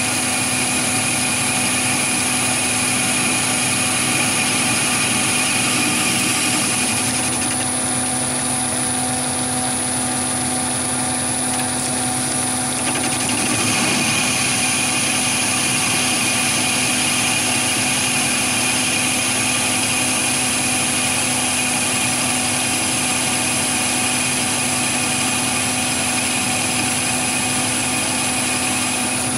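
Chinese mini lathe running steadily with a whine, turning a long taper in mild steel while its motor-driven compound slide feeds the tool through the cut. The whine changes for a few seconds about seven seconds in, then settles back.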